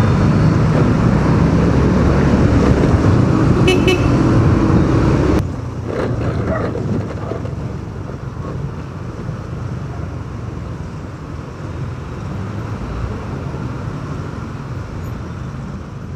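Riding a motorcycle through dense city traffic: steady engine and road noise, with a few short vehicle-horn toots about four seconds in. The noise drops abruptly about five seconds in and stays lower from there.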